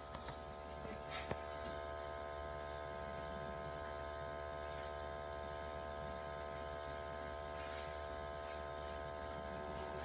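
Steady machine hum made of several pitched tones over a low drone, with a few light clicks in the first second and a half.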